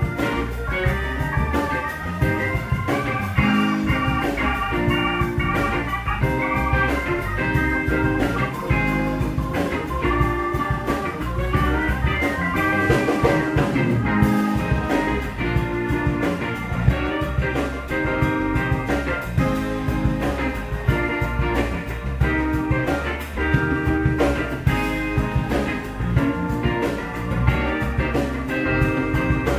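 A live blues band playing an instrumental passage: electric guitar over bass guitar and a drum kit, steady throughout.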